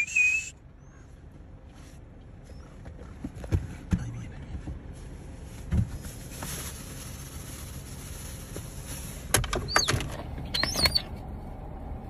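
A falconer's short, loud recall whistle at the very start, calling the hawk back. Then faint wind with a few soft knocks, and near the end a cluster of sharp clicks and short high calls.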